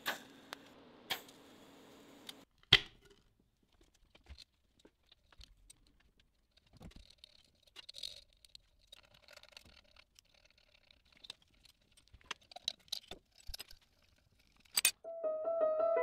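TIG welding arc on cast aluminium buzzing steadily for about two seconds, with a few sharp crackles, then a single loud crack. Scattered light clicks and taps of hand work follow, and piano music starts near the end.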